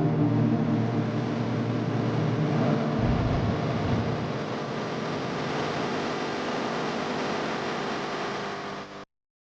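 Background music of held low notes over a rumbling wash of sound, cutting off abruptly near the end.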